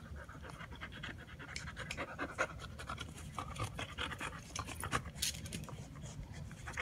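Dog panting hard and fast in quick, irregular huffs while tugging on a braided fleece rope toy.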